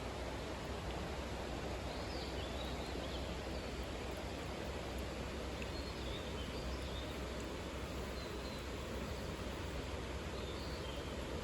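Steady outdoor background noise, with faint high bird chirps several times.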